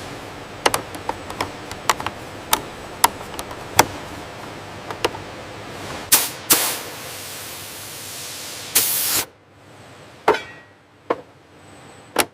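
Irregular sharp clicks and knocks of hand tools on metal parts during assembly work, followed by a few short bursts of hissing. The sound then drops away, leaving a few more clicks near the end.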